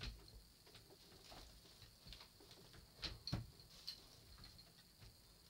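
Near-quiet room with a few light knocks and clicks from an elliptical cross-trainer's handles being moved. The loudest comes about three seconds in, with another just before four seconds.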